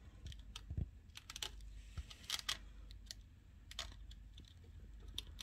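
Faint, irregular small clicks and taps of hands working a small piece of polythene film into the pins of a TV panel's ribbon-cable connector.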